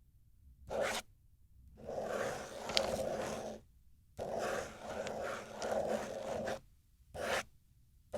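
Ballpoint pen scratching across paper in separate strokes: a short stroke, two long scribbles of about two seconds each, then short strokes near the end.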